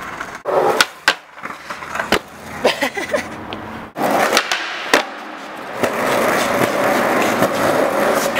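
Skateboard on concrete: a series of sharp clacks from the board's tail and wheels hitting the ground, then the steady roll of the wheels with one loud crack of a pop or landing about five seconds in.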